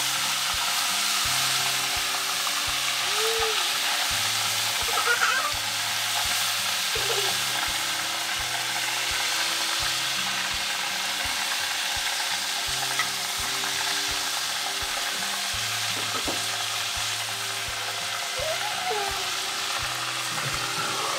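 Glazed duck sizzling on a grill grate over hot charcoal as BBQ sauce is brushed on, a steady crackling hiss. Light background music with steady low notes runs underneath.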